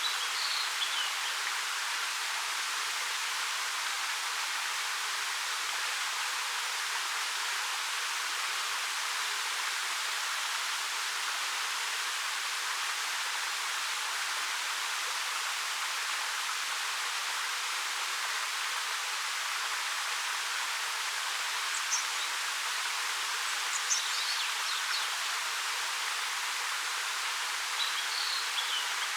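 13 m waterfall pouring steadily over rock, an even rushing hiss with little low rumble. A few brief high bird chirps come through it near the start and again towards the end.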